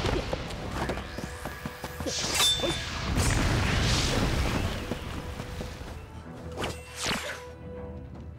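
Fantasy fight-scene sound effects: swelling magical whooshes and sharp impact hits over dramatic background music, thinning out after the midpoint with two sharp hits near the end.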